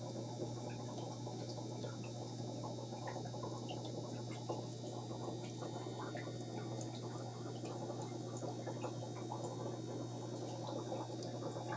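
Aquarium filtration running: a steady low hum with water bubbling and trickling, small bubble pops scattered throughout.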